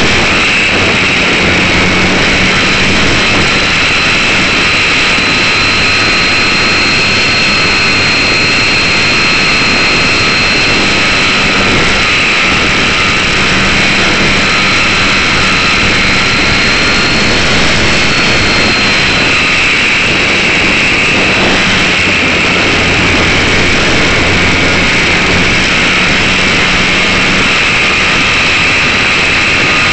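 Electric motor and propeller of a Slow Stick RC plane in flight, heard from a keychain camera on the airframe: a steady high whine that drifts slightly in pitch over loud rushing air noise.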